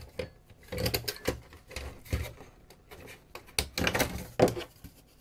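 The housing of a circuit card being handled and pried apart by hand: several irregular groups of clicks, knocks and scrapes of the cover against the card and the bench.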